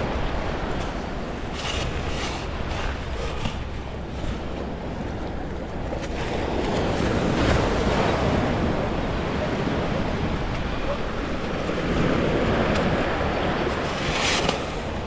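Small waves washing in and out at the water's edge, swelling louder twice, with wind rushing on the microphone.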